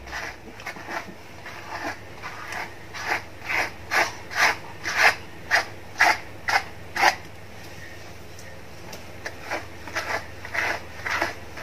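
A hairbrush raked repeatedly through a small dog's thick fur, short scratchy strokes about two a second, with a brief pause a little past halfway before the brushing resumes.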